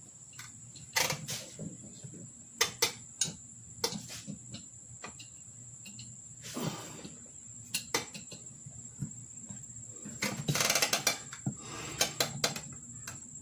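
Irregular clicks and knocks of hand work on a riding mower's wheel, rim and tire, with two short rubbing bursts, over a steady high-pitched cricket chirring.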